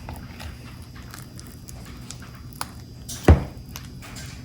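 Butter and cream cheese being pressed and mixed with a knife: a run of soft sticky smacks and small clicks, with one loud knock a little after three seconds in.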